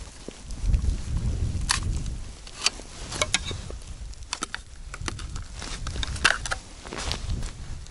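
Hand ice auger boring a hole in first ice: the blades grind and crunch through the ice, with sharp cracks and clicks scattered throughout.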